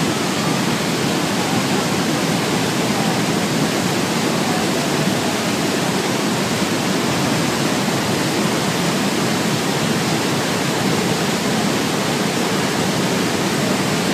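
Niagara Falls roaring: a loud, steady rush of falling water crashing onto the boulders at the base, deepest in the low-middle range and unbroken throughout.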